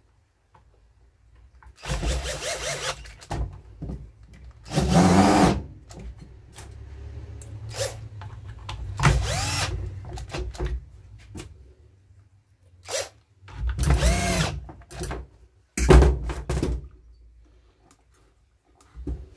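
Cordless drill-driver running in about five short bursts, its motor spinning up and down as it turns the screws on a chainsaw's housing. A few light clicks of handling come between the bursts.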